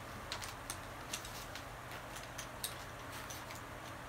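Faint, irregular light clicks and taps of a small makeup compact being handled, over a low steady room hum.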